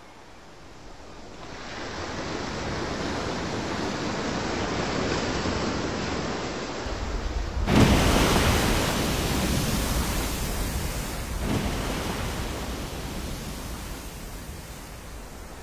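Steady rush of wind and choppy sea on the microphone. About eight seconds in comes a sudden loud splash that fades over about a second, as a humpback whale crashes back into the water after breaching.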